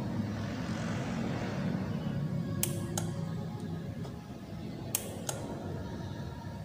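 Hands twisting and splicing motorcycle wiring, a low handling rustle with two pairs of short sharp clicks, the pairs about two seconds apart.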